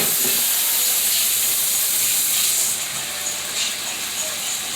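Chicken breast searing in a hot oiled skillet, a steady sizzling hiss.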